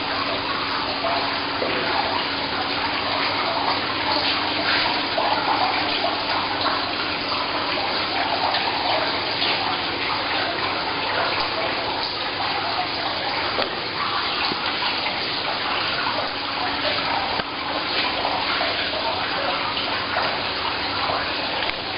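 Dense, continuous twittering and clicking of a large swiftlet colony roosting inside a dark swiftlet house, with a faint steady hum underneath.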